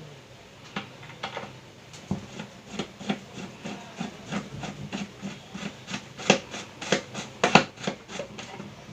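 Screwdriver turning the screws that hold a mixer grinder's motor in its body: a run of irregular small clicks and scrapes, a few a second, louder in the second half.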